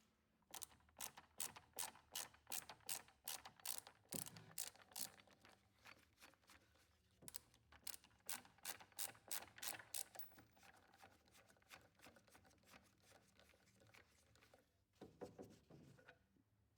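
A fast run of sharp ratcheting clicks, about three to four a second, thinning out after about ten seconds, with a few knocks near the end.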